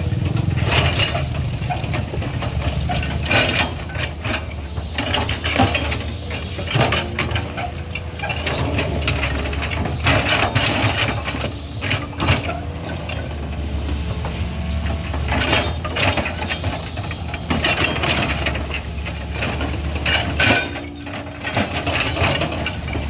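Crawler excavator's diesel engine running steadily as it works its boom and bucket, with a higher hydraulic whine that comes and goes and frequent short clanks and knocks.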